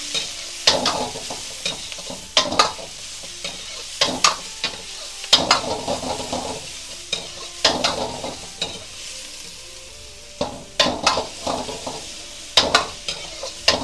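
Chopped vegetables sizzling in hot oil in a carbon-steel wok while being stir-fried. A metal ladle scrapes and knocks against the wok in irregular clusters of sharp clicks every second or two, over a steady sizzle.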